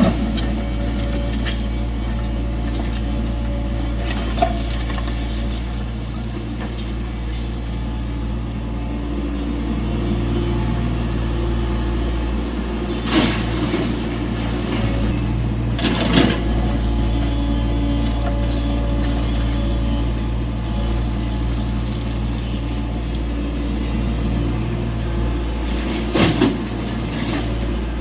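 Tata Hitachi EX70 excavator's diesel engine running steadily under working load, with a few sharp knocks, about three, as it loads a truck.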